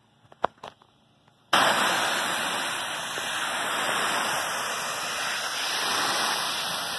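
Low-pressure washer wand with a multi-nozzle head spraying water onto a roof: a loud, steady hiss that starts abruptly about a second and a half in, after near quiet with a few faint clicks.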